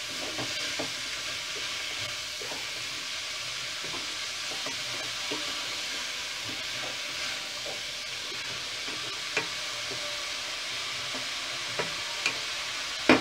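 Shredded cabbage, grated carrot and potatoes frying with a steady sizzle in a metal pot, stirred with a wooden spoon that gives a few light taps and scrapes against the pot.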